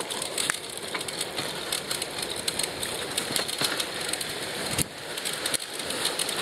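Riding noise from a recumbent bicycle rolling along a paved trail, picked up by an earpiece microphone: a steady rustling hiss dotted with many small crackles.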